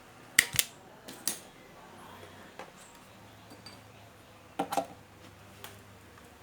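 A few sharp clicks and taps of small parts and leads being handled on a workbench, in a quick pair about half a second in, another about a second later, and a pair near the end, over a faint steady low hum.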